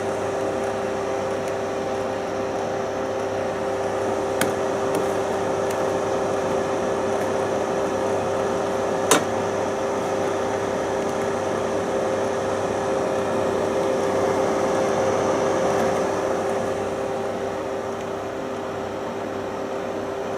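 AKO H 260/4 fan heater running: a steady motor hum over an even rush of blown air. There are two short clicks, the sharper one about nine seconds in.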